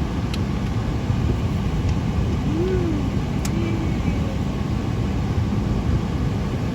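Automatic tunnel car wash running around the car, heard from inside the cabin: a steady low rumbling wash of water and machinery.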